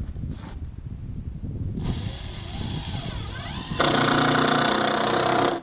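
Power drill motor spinning up in pitch, then running loud and steady at full speed for under two seconds before it cuts off suddenly near the end.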